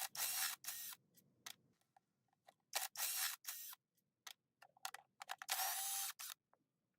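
Hand tools working on the metal parts of a diesel engine's bottom end: several short bursts of clicking and rasping, with scattered single clicks between them, as the connecting-rod fasteners are undone.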